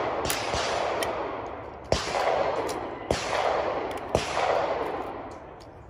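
Pistol shots fired about a second apart, four in all, each followed by a long rolling echo; the echo dies away near the end.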